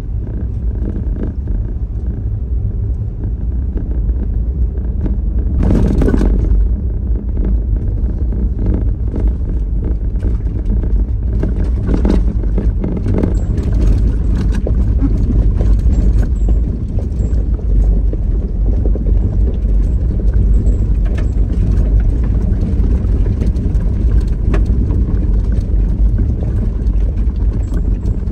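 Car driving, with a steady low rumble of road and engine noise, scattered light knocks, and a brief louder rattle about six seconds in.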